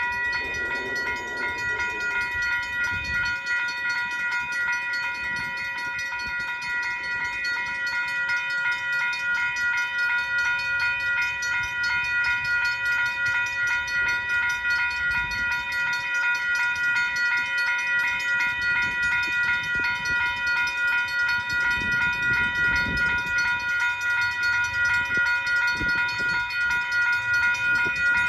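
Railroad grade-crossing warning bell ringing steadily in fast, even strokes, with a low rumble swelling about twenty-two seconds in as the train draws near.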